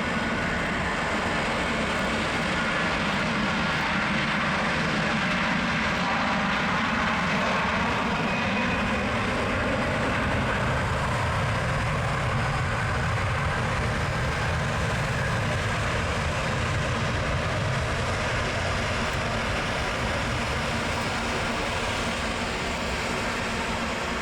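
Jet engines of an Airbus A330-200 (Rolls-Royce Trent 700 turbofans) at takeoff power as the airliner departs: a loud steady jet noise with a low rumble and faint slowly shifting whine, easing slightly near the end.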